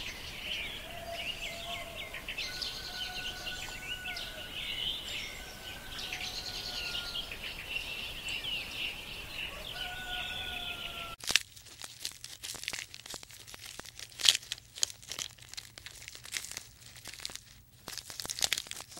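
Birds chirping and whistling over a steady outdoor background. About eleven seconds in the sound changes abruptly to close, irregular tearing and crunching as an oryx crops and chews grass.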